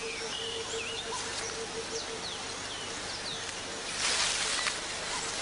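Tropical woodland ambience: scattered short bird chirps over an evenly pulsing note, with a hissing insect-like buzz coming in about four seconds in.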